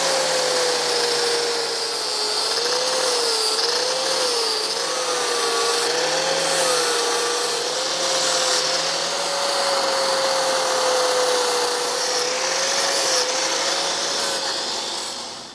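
Electric angle grinder with an abrasive disc grinding a plasma-cut edge on a steel tractor frame. The motor whine wavers slightly in pitch as the disc is pressed into the metal, over a steady grinding hiss, and it winds down near the end.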